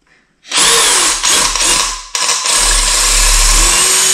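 Cordless drill with a 1/8-inch bit drilling off the head of a blind rivet in sheet metal to remove it. It starts about half a second in, stops briefly about two seconds in, then runs again, its pitch wavering as the trigger is eased and squeezed.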